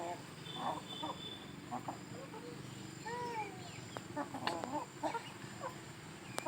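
Chickens clucking in short, repeated calls, with one drawn-out rising-and-falling call about three seconds in and a few sharp clicks in the second half.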